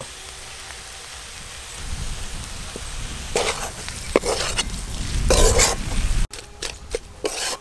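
Spiced potato-and-onion filling sizzling in a metal wok while a flat metal spatula stirs and scrapes it against the pan, the scraping getting louder about halfway through. The sound breaks off sharply a little after six seconds in, leaving a few light clicks.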